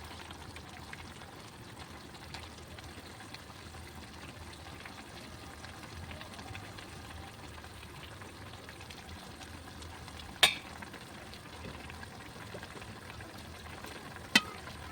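Food frying in a pan with a steady sizzle, with two sharp knocks, one about ten seconds in and one near the end.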